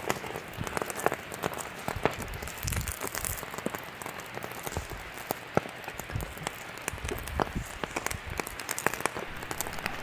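Wood fire crackling inside a straw-and-clay lime kiln: a steady run of sharp little clicks and pops from the glowing coals.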